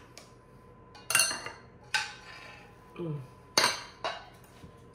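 Metal spoon scraping and clinking against the inside of a pot as the last of a white sauce is scooped out, in a few separate strokes, the loudest about a second in and about three and a half seconds in.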